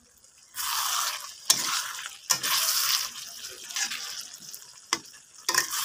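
Metal spatula stirring and scraping thick potato curry in a pan: three scraping strokes with sharp knocks of the spatula on the pan between them.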